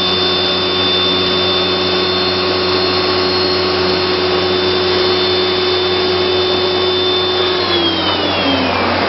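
Biesse Rover 23 CNC machining centre running: a loud, steady rushing noise with a high-pitched spindle whine. Near the end the whine slides down in pitch as the spindle slows.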